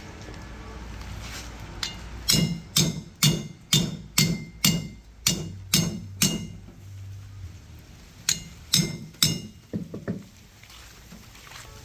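Machete chopping through a large jack fish: a run of about nine sharp strikes, roughly two a second, each with a short ring, then a pause, three more strikes and a few lighter knocks.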